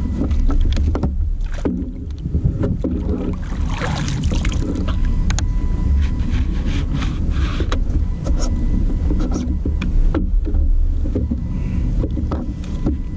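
Wind buffeting the camera microphone in a steady low rumble, with scattered knocks and clatter of gear being handled on a plastic fishing kayak as a fish measuring board is put away and a rod is moved.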